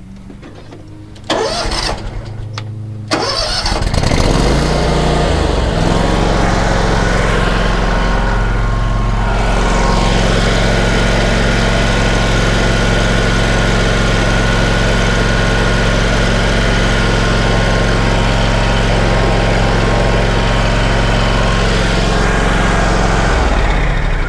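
Toro Grandstand mower engine turning over in two short bursts and catching on the second, revving up, then running steadily before shutting off near the end. It is being run on fresh oil to check the level and look for leaks.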